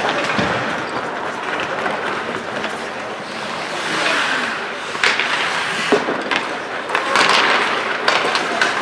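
Ice hockey play: skates scraping on the ice and sharp clacks of sticks and puck, the clearest about five and seven seconds in, with voices calling out.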